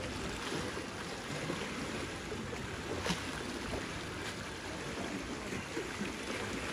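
Seawater washing and splashing around shoreline rocks, a steady rush of surf with one sharper splash about three seconds in.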